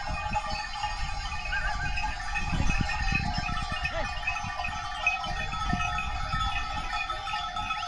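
Sheep and goats in a large mixed flock bleating now and then over steady background music, with a low rumble underneath.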